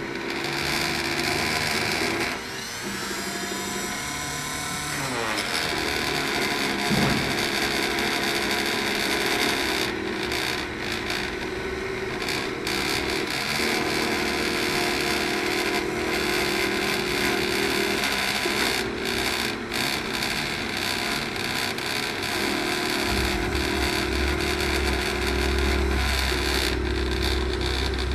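Homemade CNC milling machine running: the rotary-tool spindle whirs steadily while the axis motors add pitched tones that start, stop and change as the machine moves. There are gliding pitches a few seconds in, and a low rumble joins near the end.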